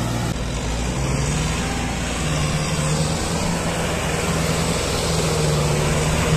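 Tractor diesel engines running hard under load while one tractor tows the other out of deep mud: a steady drone whose pitch steps up and down a few times.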